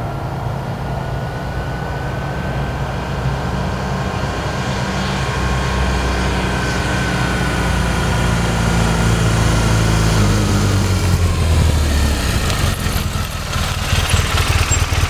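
BMW R1200GS motorcycle's flat-twin boxer engine running as the bike rides slowly up the road toward the listener, getting louder as it approaches, then easing off as it pulls up about twelve seconds in.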